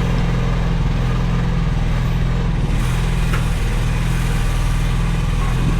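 Mini excavator's small engine running steadily, with an even, unchanging pitch.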